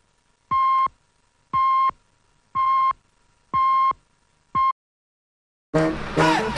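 Film-leader countdown beeps: a steady mid-pitched tone sounds once each second, five times, with the last beep cut short. After a second of silence, music begins near the end.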